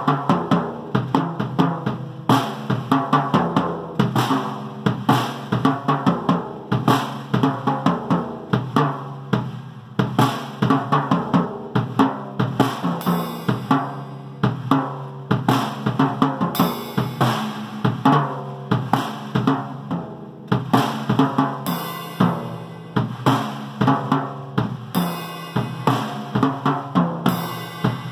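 Drum kit played with sticks: a steady, driving beat on bass drum and snare, with cymbal crashes several times in the second half.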